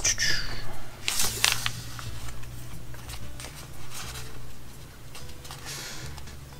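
Paper sticker sheets rustling and crinkling as they are handled and leafed through, in short scattered bursts with light taps, over a steady low hum.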